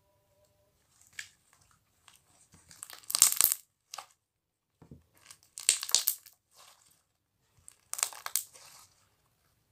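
Crinkling, crunching handling noise in three main bursts a couple of seconds apart, with a few lighter rustles between them.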